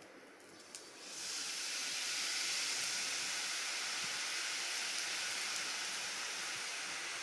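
Gram-flour boondi batter dropping into hot oil and deep-frying: a steady sizzle starts about a second in and holds.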